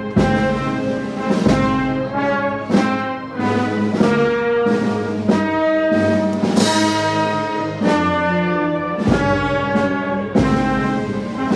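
Brass band playing a slow Holy Week processional march, with held brass chords over a heavy drum beat about every 1.3 seconds and a cymbal-like crash a little past halfway.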